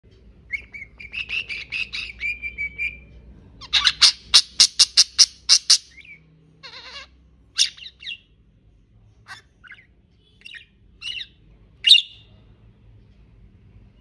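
Budgerigar chirping and warbling: a string of short pitched notes, then a fast run of sharp chirps at about four a second, then scattered chirps and one loud chirp near the end.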